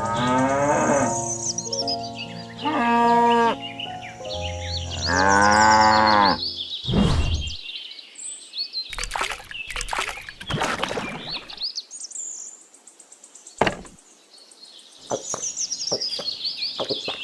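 Cattle mooing: three drawn-out calls in the first six seconds or so, then birds chirping and a run of sharp knocks and clicks.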